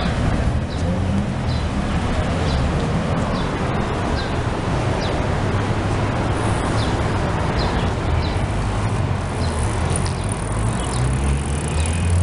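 Steady street traffic noise, with a short high falling chirp repeating about once a second.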